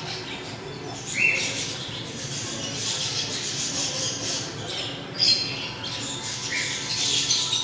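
Short high-pitched animal squawks and chirps, twice standing out clearly, over a steady hiss of shop background noise, with a couple of sharp knocks.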